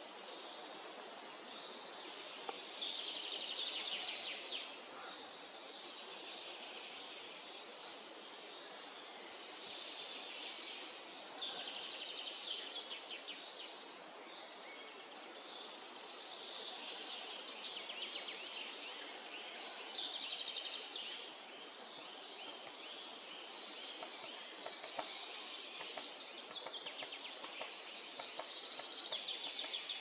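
Songbirds singing, short trilled phrases every few seconds, over a steady background hiss.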